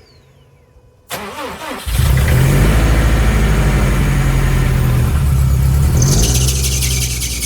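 2013 Subaru WRX STI's turbocharged flat-four engine, freshly rebuilt, cranking briefly on the starter about a second in, then catching and settling into a loud, steady idle. A high-pitched sound joins near the end.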